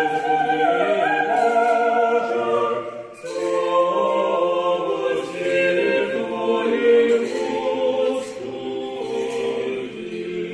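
Orthodox church choir singing a liturgical chant a cappella in several voices, with a short breath break about three seconds in before the next phrase.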